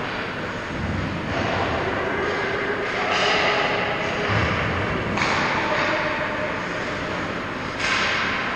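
Indoor ice hockey rink ambience: a steady rushing noise that steps up and down in level a few times, with no single sound standing out.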